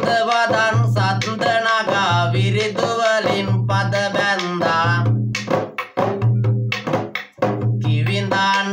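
A man singing viridu verse in Sinhala to his own rabana, a hand-held frame drum beaten by hand, keeping a steady beat about once a second. The singing breaks off briefly past the middle and then resumes.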